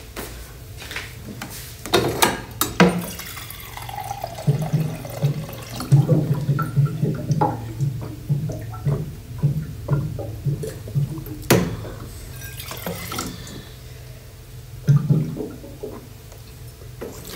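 Someone drinking water: a few sharp knocks of the drinking vessel and water sloshing, then a run of swallows, about two a second, with another knock near the end.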